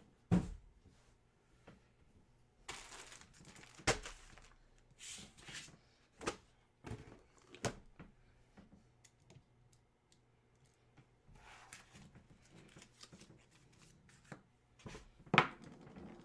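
Trading cards and their packaging being handled: intermittent tearing and crinkling of wrappers, with scattered light knocks and clicks.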